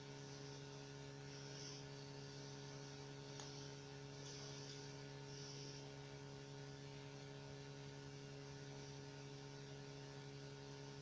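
Faint, steady electrical mains hum: an even stack of unchanging tones, with faint hiss coming and going during the first half.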